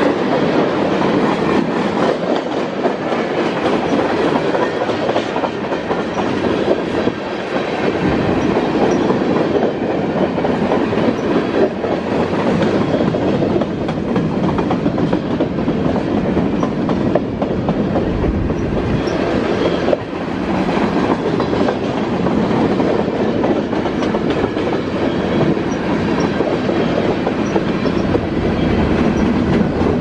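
A train rolling past close by, its steel wheels clattering on the rails in a continuous loud rumble that lasts throughout.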